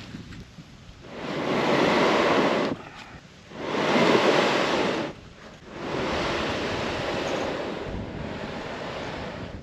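Rushing noise of water and wind as a kayak moves along a river, in three long swells that each cut off abruptly.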